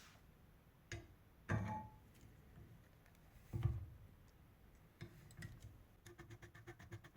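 Parkside hand rivet nut tool setting an M6 rivet nut: a light click, two dull clunks a couple of seconds apart, then a fast run of light ticks near the end.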